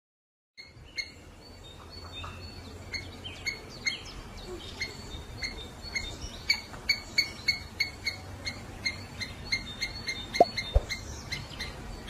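High, short chirps repeated about twice a second from a small animal, with a couple of sharp clicks near the end.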